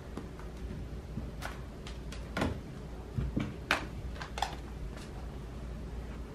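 Oracle cards being handled: a handful of sharp snaps and taps as cards are drawn from the deck and laid on the table, over a low steady hum.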